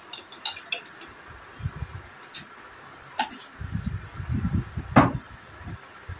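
Steel dishes and cutlery clinking as they are handled: scattered light clinks, a louder one about five seconds in, with dull knocks of handling just before it.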